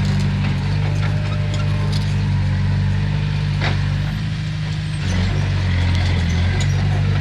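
Heavy diesel engine of a bulldozer or dump truck running steadily; its note shifts about four seconds in and settles back near the end. A single sharp clank a little before the shift.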